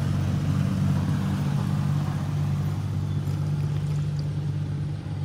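A steady, low-pitched motor hum with no change in pitch.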